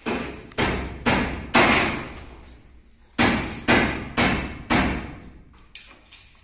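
Hammer blows, about two a second, in two runs of four with a short pause between. Each strike rings briefly in a bare, echoing room.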